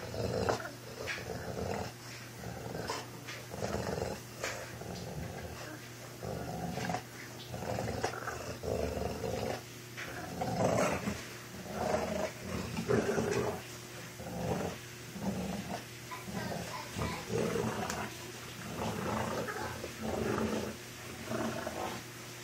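An American bulldog and a Boston terrier puppy growling over and over as they fight, in short repeated bursts about a second apart.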